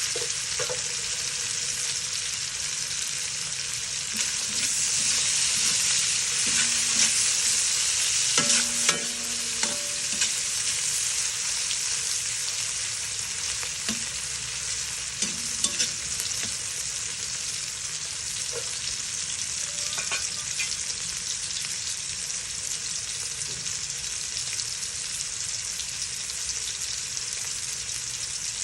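Food sizzling steadily in a hot pan while being stirred, with occasional scrapes and clinks of a utensil against the metal pan, more of them about a third of the way in.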